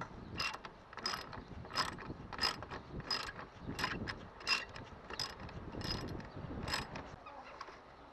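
Hand ratchet and socket undoing a bolt, the pawl clicking on each return swing: about ten even strokes, roughly three every two seconds, stopping near the end.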